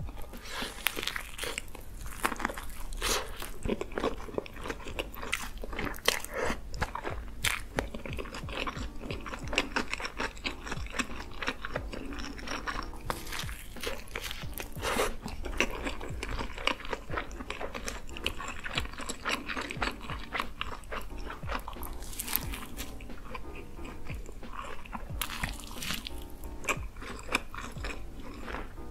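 Close-miked eating sounds: crunchy bites into a grilled, toasted sandwich and chewing, over background music.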